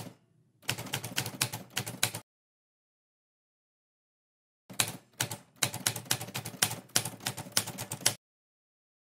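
Typewriter sound effect: rapid key clacking in two runs, one about a second and a half long shortly after the start, the other about three and a half seconds long from about five seconds in, with dead silence between them.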